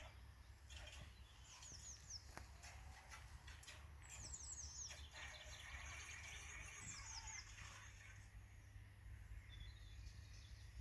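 Faint bird chirping: quick runs of short, high, falling notes, heard three times, over a low steady rumble.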